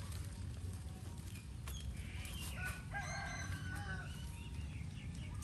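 A drawn-out animal call of about two seconds, with several held pitches, near the middle, over a steady low rumble.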